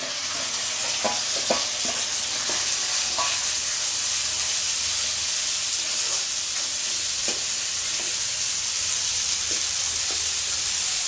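Fried onion and spice masala sizzling steadily in hot mustard oil in a pan, with a few knocks of a spatula stirring it. The sizzle comes on loud as the ingredients go into the oil.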